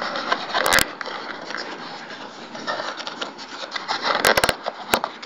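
Hands rubbing and scraping on plastic camera packaging, with a couple of sharp clicks under a second in and a quick run of clicks a little after four seconds.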